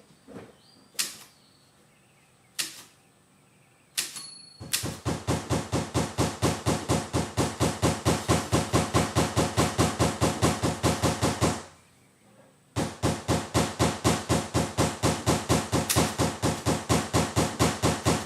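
Typewriter clattering: a few single key strikes, then two long runs of rapid, evenly spaced strikes at about six a second, each lasting several seconds.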